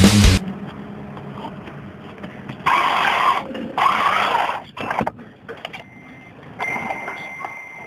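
Radio-controlled car's small electric motor whining in two short bursts, about three and four seconds in, with squealing and scraping. Music cuts off right at the start.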